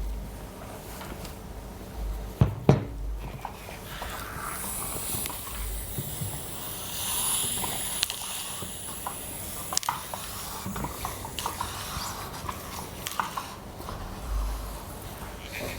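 Hand bike pump inflating the inner tube of a 150 mm electric skateboard tire toward 3.5 bar: air hissing for a few seconds in the middle, with scattered clicks and knocks from the pump.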